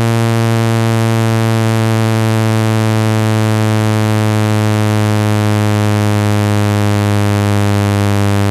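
Synthetic speaker-cleaning tone: a loud, steady, low buzzy tone with many overtones, played through a phone speaker to shake dust out of the grille.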